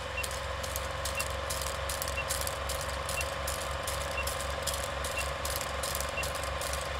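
Old film projector sound effect for a countdown leader: a steady mechanical whirring clatter with crackle, and a short high blip once a second as the numbers count down.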